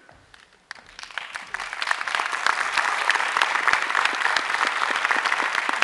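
Audience applauding. The clapping starts about a second in, swells quickly and then holds steady.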